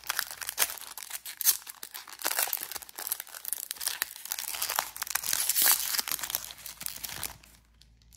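Foil wrapper of a Topps Chrome trading-card pack crinkling and tearing as it is pulled open by hand, with sharp crackles throughout, stopping about seven seconds in.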